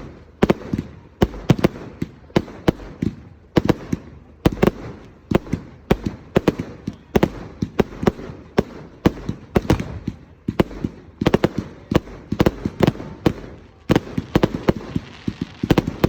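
Fireworks display: a rapid, irregular string of sharp bangs, several a second, without a pause.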